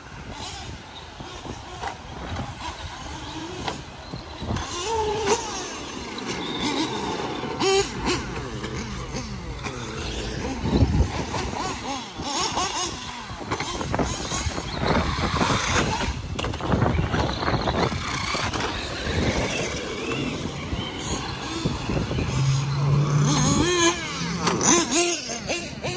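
Radio-controlled cars driving hard: electric motors whining and changing pitch as they speed up and slow down, over tyre and dirt noise, with a few sharp knocks.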